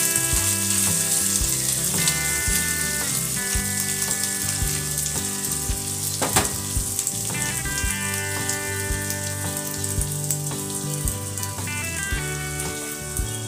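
Boiled pasta and vegetables frying in an oiled wok on a low gas flame: a steady sizzle, stirred with a silicone spatula. There is a sharp click about six seconds in as the spatula is laid down on a steel plate, all over background music.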